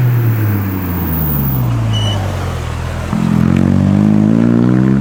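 Rally car engine coming off the throttle, its note falling for about three seconds, then the revs climbing sharply as it accelerates away.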